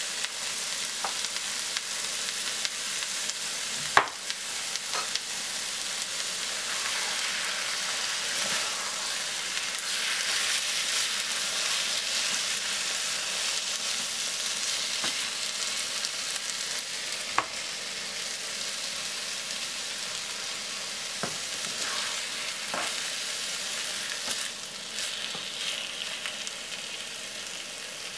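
Chicken liver and onions sizzling steadily in a frying pan while being stirred with a spatula. A few sharp knocks of the spatula against the pan are heard; the loudest is about four seconds in and another comes near the middle.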